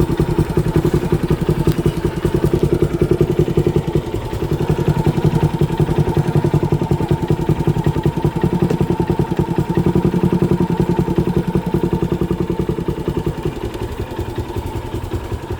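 Motorcycle engine idling with a fast, even pulsing beat. The owner says the bike's sound has changed and suspects poor airflow through a clogged air filter.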